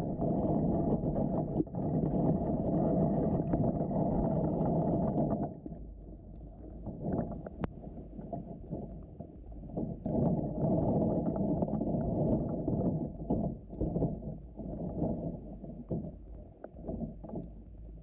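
Muffled rush of creek water heard underwater through a GoPro's waterproof housing, with a steady low rumble and a few short knocks. It is loud for the first five seconds or so, drops to a patchy wash, and swells again about ten seconds in.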